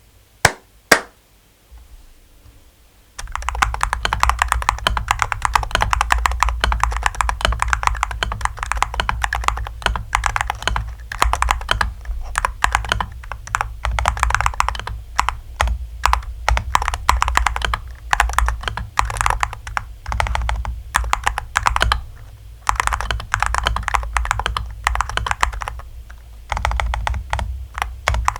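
Angrymiao Retro 63 RT keyboard being typed on. Two sharp clicks sound in the first second, then dense, fast typing starts about three seconds in and keeps going, with a couple of short pauses.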